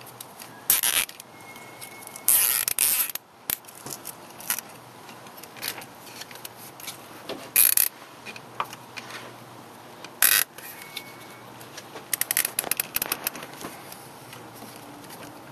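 Nylon cable tie being threaded through a plastic clamp and pulled through its own ratchet head: several short scraping rasps, then a quick run of clicks near the end as the tie is drawn tight.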